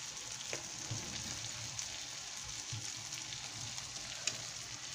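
Egg and tomato curry sizzling steadily in a metal pan on the stove, with a few faint ticks.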